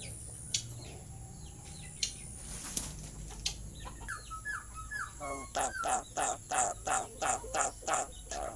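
Pet starling (jalak) calling: a few short whistled notes, then a loud run of about ten harsh calls at roughly three a second.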